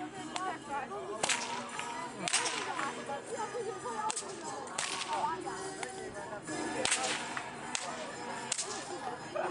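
Hungarian karikás herding whip cracking sharply, about half a dozen cracks at uneven intervals, some a second apart and some several seconds apart.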